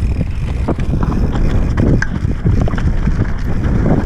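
Mountain bike riding down a rocky dirt slope: tyres crunching over loose stones and the bike rattling with quick knocks over the bumps, over a low wind rumble on the microphone.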